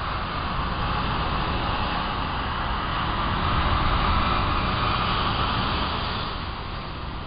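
Black Sea surf breaking and washing up the beach: a steady rush of waves and foam that swells about four seconds in and eases near the end.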